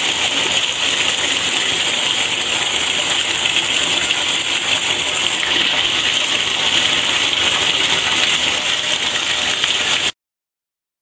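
Bathtub faucet running, water gushing steadily into a shallow bath. It cuts off suddenly near the end.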